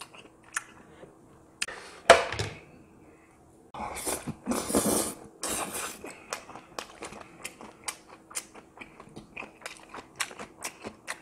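Close-miked chewing: a run of small wet clicks and crunches as a mouthful of food is chewed. There is one louder sound about two seconds in and a few longer, louder rushes around four to five seconds in.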